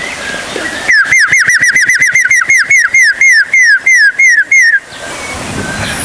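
A man whistling a rapid series of about twenty sharp, downward-sliding notes, imitating a bird's call to lure an aviary bird. The notes come quickly at first and slow toward the end, then stop just before five seconds in.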